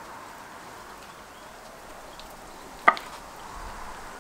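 Quiet handling sounds of a gloved hand working yogurt marinade into a raw whole chicken, with one sharp knock about three seconds in.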